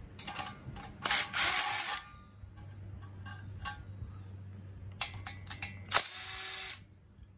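Cordless power tool spinning cylinder head nuts off a VW 1600 dual-port engine in two bursts, one about a second in and one near the end. Light metallic clicks of the socket and parts come between them.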